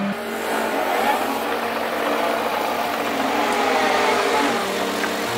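Diesel engine of a John Deere 325G compact track loader running, with a steady engine note and a tone that rises and falls in the first second or so.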